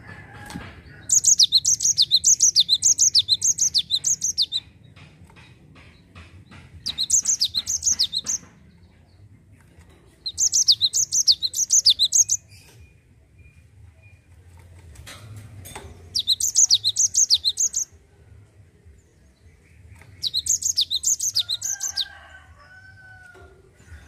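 Cinereous tit singing its rolling song: five bouts of fast, high repeated notes, each one to three seconds long, with short pauses between. Light ticks sound between the first two bouts.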